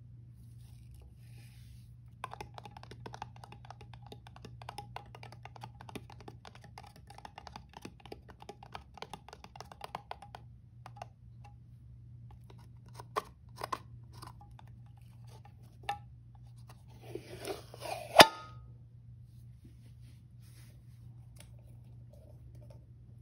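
Fingers rapidly tapping and scratching on a cardboard can of Ajax powder cleanser, with a faint ring. A few separate clicks follow, then a crinkling tear that ends in a sharp loud snap as the shaker lid is peeled open.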